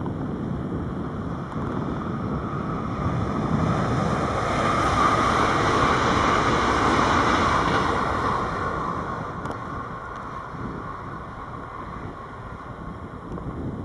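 Passing train: a rushing noise that builds to its loudest about halfway through, then fades away.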